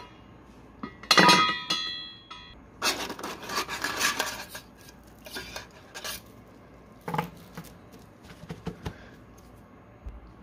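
Metal bicycle chain being lifted out of a stainless-steel ultrasonic cleaner tank: a loud metal clang about a second in that rings on for about a second, then a stretch of rattling and clinking chain links, followed by a few scattered clinks as the chain is handled and set down.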